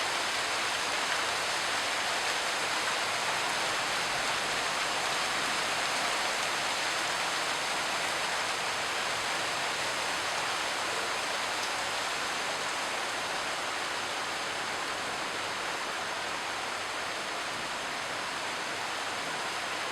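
Steady rain falling, a constant even hiss with no pauses, with a faint thin high tone running through it.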